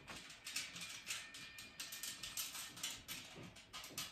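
Light, irregular clicking and ticking of metal parts as a bolt is turned by hand into a corner joint of a steel mesh trolley frame during assembly.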